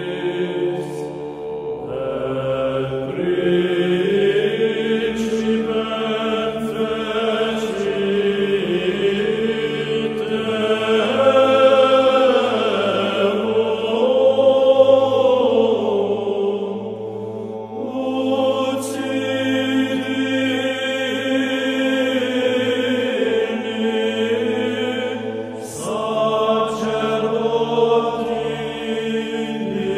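Orthodox chant: a hymn sung in long, slowly moving phrases over a steady held drone note.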